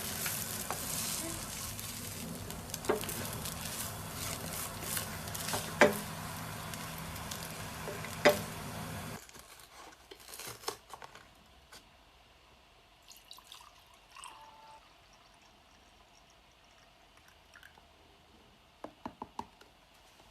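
Food sizzling in a frying pan with sharp pops of spattering oil, cutting off suddenly about nine seconds in; after that only faint scattered clicks and taps of kitchen handling, with a quick cluster of clicks near the end.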